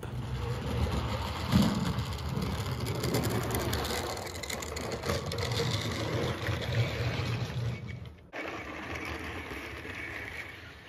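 HO scale model freight train running along the track, a steady mechanical whir of its motor and wheels; it cuts out for an instant about eight seconds in, then carries on a little quieter.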